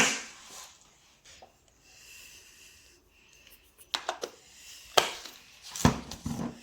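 A spoon knocking and scraping in a bowl while stirring homemade slime, with a sharp knock at the start and a few more knocks and scrapes later on.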